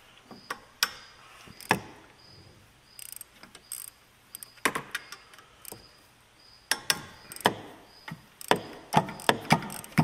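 A hand socket ratchet turning bolts out in short runs of rapid clicks, with separate sharp knocks and clinks of the tool, socket and bolts being handled.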